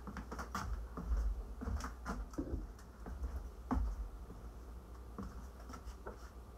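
Kitchen prep handling: scattered light clicks, taps and scrapes, with a few duller thumps about a second in and near four seconds in, and a knife on a plastic cutting board as raw pork is cut toward the end.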